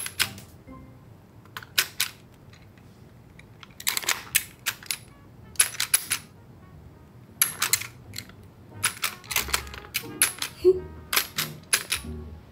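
Sharp plastic clicks and clacks from a tabletop finger-football toy, its kicker levers being pressed and the ball knocked about, in irregular clusters of one to three clicks every second or two. Soft background music plays underneath.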